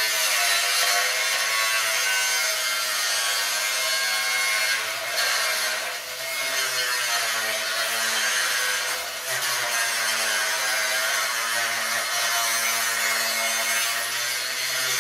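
Angle grinder cutting a slot into a steel tube inside a steel firebox, its steady whine wavering and sagging as the wheel bites, with brief dips about six and nine seconds in.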